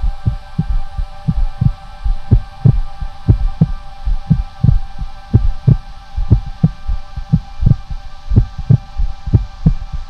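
Heartbeat-like low thumps in pairs, one pair about every second, over a steady droning hum of several held tones.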